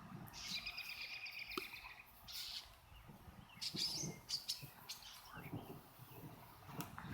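Songbirds calling: a rapid run of repeated high notes lasting just over a second, then scattered short chirps.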